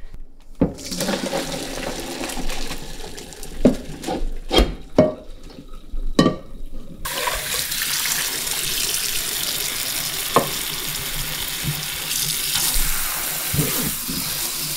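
Parboiled rice and noodles being drained into the sink, with a few knocks of the pot, then about halfway through the kitchen tap is turned on and runs steadily, rinsing the rice with fresh water.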